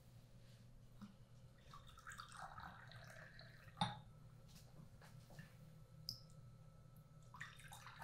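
Faint sound of tea being poured from a teapot into cups, in two spells, with one light clink of crockery about four seconds in.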